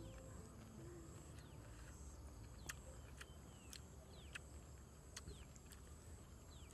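Near silence: faint outdoor ambience with a few soft, scattered clicks and several short, high, falling chirps.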